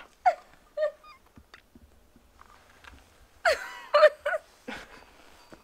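A person's wordless vocal sounds: a few short utterances near the start, then a louder, longer one with a wavering pitch about three and a half seconds in.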